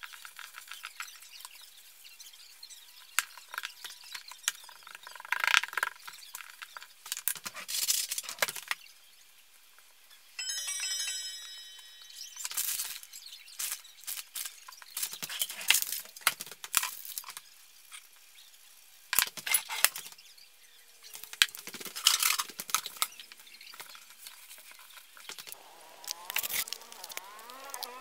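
Irregular rustling, scraping and tapping of hands working pizza dough and toppings on a floured countertop, with a brief pitched tone a little after ten seconds in.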